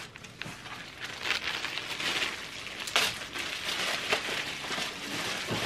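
Clear plastic packaging bags crinkling and rustling as they are handled, with a few sharp clicks along the way.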